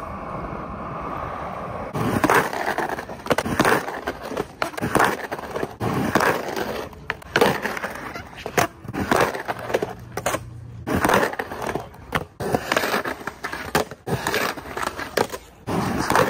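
Skateboard on concrete: wheels rolling for the first couple of seconds, then a run of tail pops, trucks grinding along a low curb and hard landings, sharp knocks coming about once or twice a second. The grinds are on Independent Stage 4 trucks.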